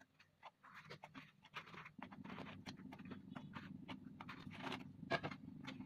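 Faint, irregular soft taps and clicks of fried puli pitha being laid one by one into a pot of milk syrup, over a faint low hum from about two seconds in.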